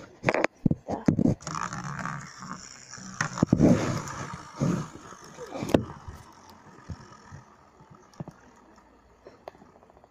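Small plastic spinning tops spinning and scraping on a plastic tray, with many sharp knocks and a rasping whir for the first six seconds or so, then quieter with only a few scattered clicks.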